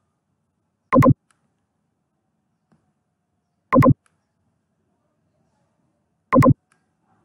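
Computer mouse clicking close to the microphone: three loud double clicks, about two and a half seconds apart.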